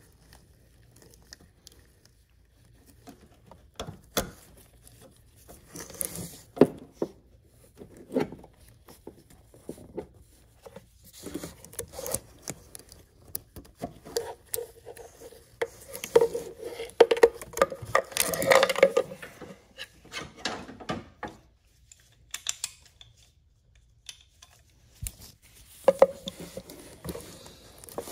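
Hand tools and gloved hands working on a hose clamp and coolant hose: locking pliers and pliers clicking and clinking against metal, with rubbing and scraping. The handling is busiest about halfway through.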